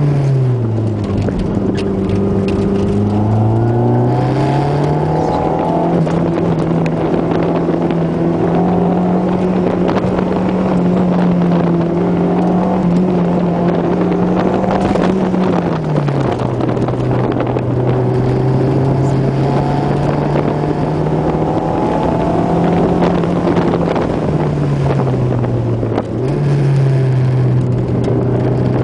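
Car engine heard from inside the cabin during an autocross run. The pitch drops just after the start, climbs over the next few seconds, holds high, falls about halfway through, and dips briefly near the end as the car accelerates, lifts and brakes between the cones.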